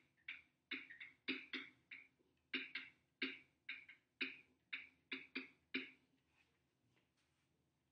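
Pen or marker writing strokes, a quick run of short scratches and taps at about three a second, as figures are written out. They stop about six seconds in.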